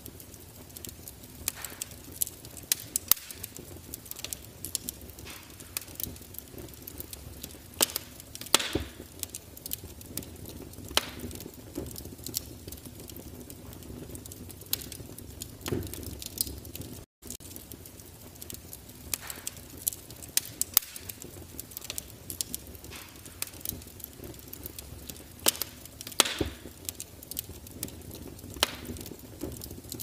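Wood fire crackling behind the closed glass door of a fireplace insert: irregular sharp pops and snaps over a steady low rush of burning, with a few louder pops about a third of the way in and again near the end.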